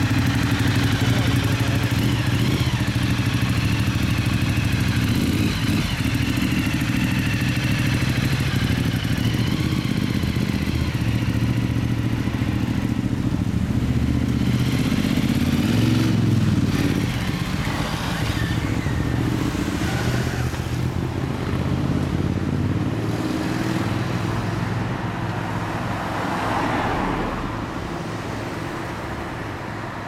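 Ducati Diavel Carbon's V-twin engine with an aftermarket Zard Conico silencer running at idle close by. The bike then pulls away past, loudest about halfway through. After that comes mixed motorcycle and car traffic.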